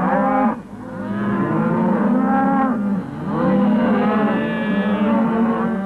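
Cattle mooing: several long, drawn-out calls one after another.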